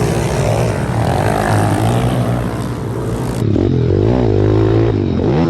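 Small motorcycle engines running and revving, the pitch rising and falling; the sound changes abruptly about three and a half seconds in, as from one clip to another.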